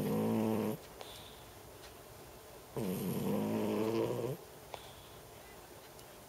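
A cat snoring in deep sleep: a snore trails off under a second in, then a second snore about a second and a half long comes near the middle, each a low droning tone, fairly loud.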